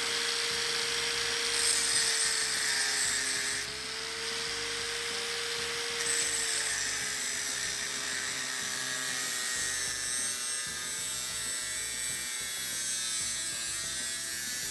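Angle grinder running with a steady whine, its disc grinding through a metal twin-track shelving rod. The high grinding hiss drops for a couple of seconds near the middle, then comes back.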